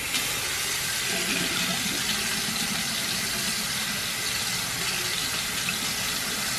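Tap water running steadily from a bathroom faucet into a sink, splashing over fingers held in the stream.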